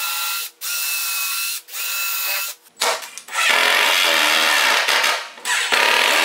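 Yellow DeWalt cordless drill run in three short bursts of about a second each, a steady motor whine, drilling into the vise base plate's mounting holes. It is followed by two longer, louder and rougher runs of a cordless driver sinking the screws that secure the base plate to the bench.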